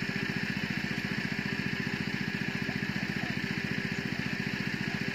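A small engine running steadily at an even, fast chug, unchanging throughout.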